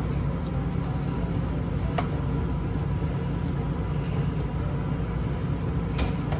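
A steady low hum, with two brief clicks about two and six seconds in.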